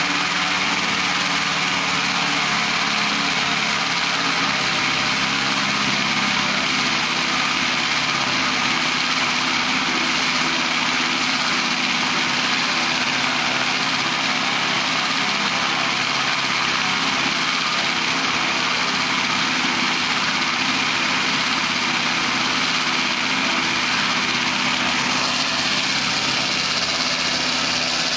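Paramotor's two-stroke engine running at a steady throttle, a constant dense drone that holds unchanged throughout.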